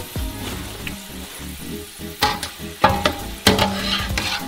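Freshly deep-fried potato fries sizzling as they come out of the hot oil and are dropped onto paper towels, with a few sharp taps and rustles from about two seconds in. Background music plays underneath.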